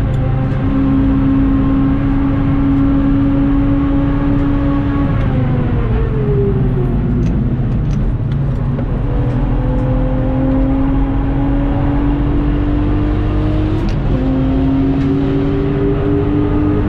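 Lexus IS200's stock 1G-FE 2.0-litre straight-six engine under hard driving, heard inside the cabin: the revs climb for several seconds, fall away over about two seconds, climb again, drop suddenly at an upshift about fourteen seconds in, and climb once more, over steady road and tyre noise.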